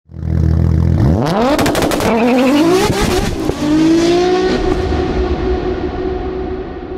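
Car engine idling, then revving hard and accelerating, its pitch climbing in steps as it shifts up, with a rapid run of crackles as it first revs. It settles into a steady note near the end.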